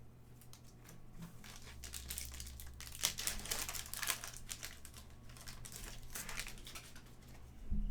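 A foil trading-card pack wrapper crinkling as it is handled and torn open, with a burst of crackling in the middle and a single sharp click about three seconds in. A low thump comes near the end.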